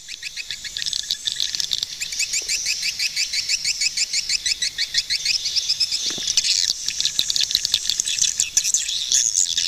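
Swiftlets twittering: a dense, rapid stream of short, high chirps, several a second, fading in over the first second or two.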